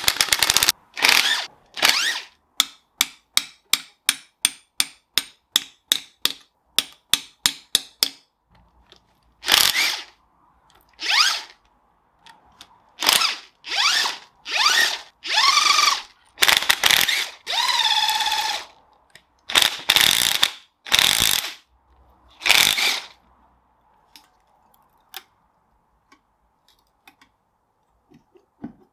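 Handheld electric power driver with a socket on an extension spinning out the front-cover bolts of a Land Rover 2.25 petrol engine. The first eight seconds are many short trigger blips, a few a second. Then come longer runs in which the motor's whine rises and falls, before it stops a few seconds before the end.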